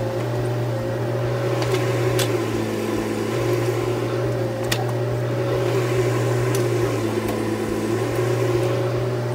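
Bobcat E10 mini excavator's diesel engine running steadily under hydraulic load while the boom swings and digs, its hum shifting slightly a couple of times as the load changes. A few faint clicks over it.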